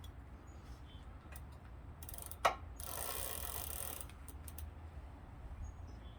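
A ratchet mechanism clicking rapidly in two short runs, about two and three seconds in, with a single sharp click between them and a few scattered light clicks around them.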